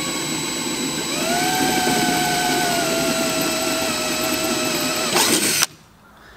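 DeWalt cordless drill running while drilling a hole in a throttle-cable part. The motor whine steps up in speed about a second in, sags slowly as the bit cuts, and stops abruptly about five and a half seconds in.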